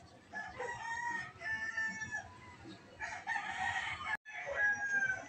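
Roosters crowing, several long calls one after another, the last one held and falling slightly near the end; the sound drops out for a moment about four seconds in.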